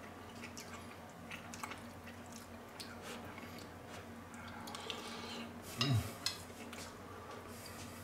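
Quiet eating sounds: a metal spoon clicking and scraping on a plate, with soft chewing. About six seconds in comes a short, low hum from the eater's voice.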